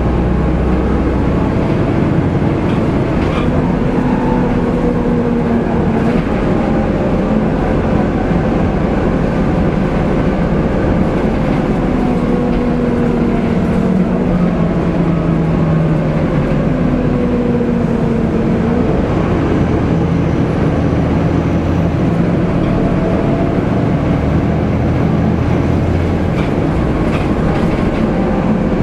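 Volvo B7TL double-deck bus heard from inside the lower deck on the move: its seven-litre straight-six diesel and ZF automatic driveline running loudly over a steady rumble of road and body noise, the engine note climbing and dropping back several times.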